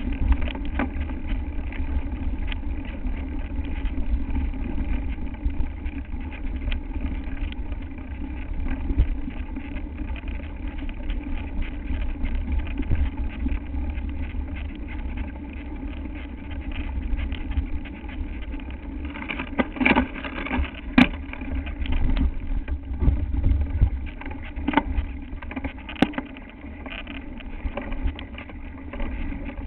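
Mountain bike riding over a dirt singletrack: continuous rumble of tyres and wind on the microphone, with the bike and camera mount rattling in scattered clicks and knocks over a steady hum. About twenty seconds in there is a louder rush with a couple of sharp knocks, and another sharp knock a few seconds later.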